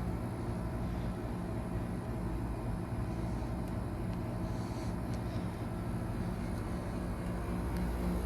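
1991 Bryant Reliant 697A heat pump running in its defrost cycle: a steady low machine hum with a few faint clicks.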